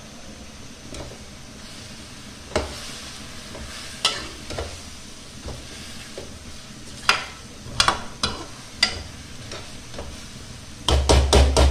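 A metal spoon scrapes and knocks against a metal kadai, stirring potatoes and fenugreek leaves (aloo methi) that are frying. A steady sizzle runs underneath. Single clinks come every second or two, then a quick flurry of knocks with a low thud near the end.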